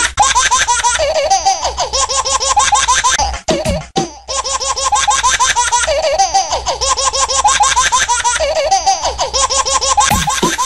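A baby laughing in rapid, high-pitched repeated giggles, with a short break about three and a half seconds in, over background music.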